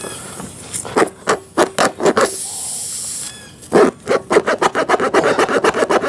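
Tire plug kit's reamer tool worked in and out of a puncture in a truck tire's tread, rubber rasping with each stroke. A few slow strokes come first, then a second-long hiss about two seconds in, then quick strokes at about five a second. This is the hole being reamed clean to take a plug.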